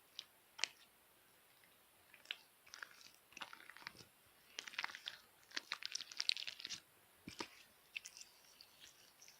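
Stiff slime being squeezed and pressed by hand, giving sticky clicks and crackling pops. A few single clicks come at first, then dense runs of crackles through the middle.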